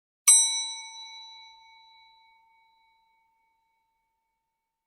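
A single bright bell ding, struck once and left to ring, fading away over about two seconds.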